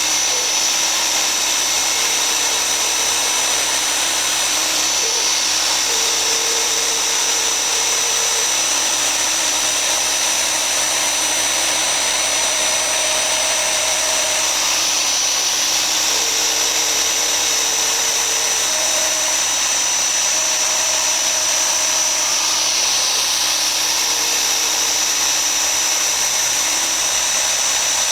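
ASIMA AR 1200 CNC router's spindle running steadily as it cuts a die base: a constant high-pitched whine over a loud hiss, with faint lower tones that come and go as the cut moves along.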